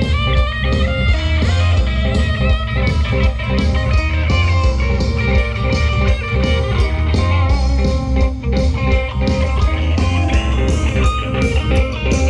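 A live band playing a sound check: electric guitar picking a melody over bass guitar and a steady beat.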